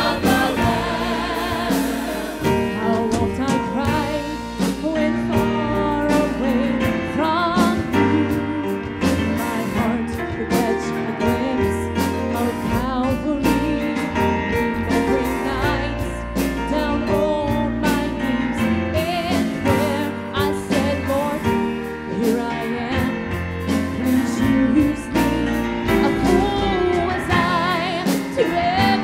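Church choir singing a gospel song with instrumental accompaniment, the voices wavering with vibrato over a steady beat.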